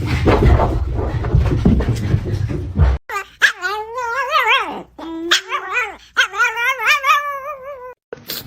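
A dog giving long, wavering, howl-like whines, several drawn-out cries that bend up and down in pitch. Before them, for about the first three seconds, a rough rumbling noise that cuts off abruptly.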